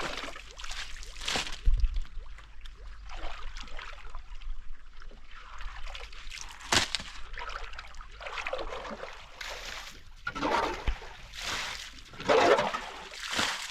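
Water splashing and sloshing in irregular bursts, with trickling between them, as water in a small spring-fed pond is stirred and scooped.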